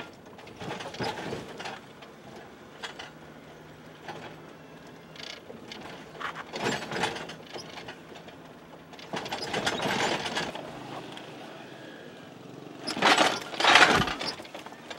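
Clattering and rattling inside a moving military vehicle's cab, in irregular bursts over a faint steady engine hum, with the loudest clatter near the end as the camera is jostled.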